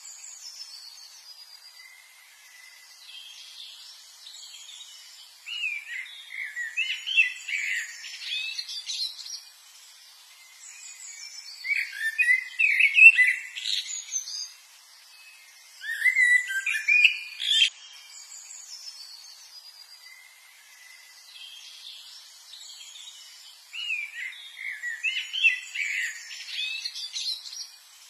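Small songbirds singing: bursts of quick, high twittering phrases every few seconds, with softer chirps in between.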